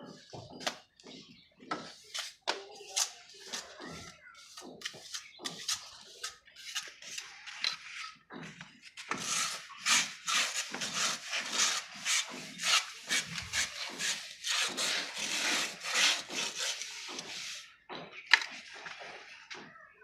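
Plastering tools scraping and rubbing over wet sand-and-cement plaster on a wall, in repeated strokes that grow denser and louder through the middle at about two a second. A single sharp knock comes near the end.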